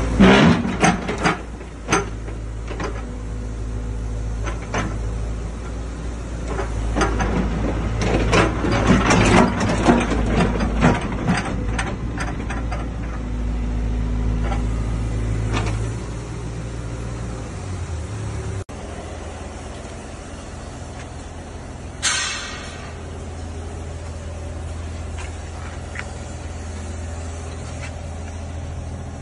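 Sany crawler excavator's diesel engine running steadily, with a run of metallic clanks and knocks through the first half and a short hiss about two-thirds of the way through.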